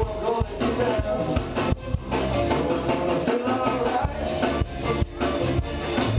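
Band music with singing, guitar and a steady drum beat.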